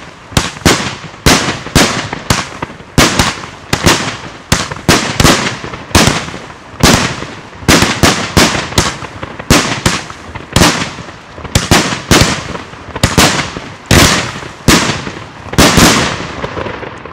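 A firework battery firing a rapid series of shots, about two sharp bangs a second, each shell bursting in the sky. The firing stops shortly before the end.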